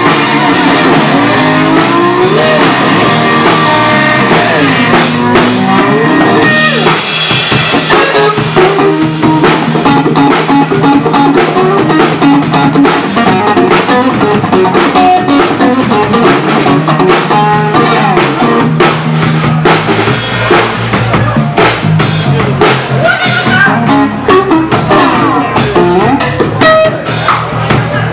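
Live blues-rock band playing instrumental: a resonator guitar with gliding, bending notes over electric bass and a drum kit. The drums get busier from about six seconds in.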